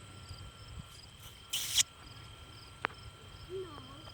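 Insects chirping in a steady pulsing rhythm, with a short, loud rustling burst about a second and a half in and a sharp click near the end.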